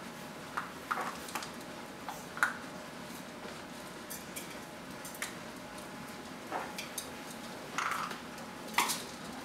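Vizsla puppies eating from a stainless steel bowl: scattered clinks and clanks of metal, with the sharpest ones about two seconds in and near the end.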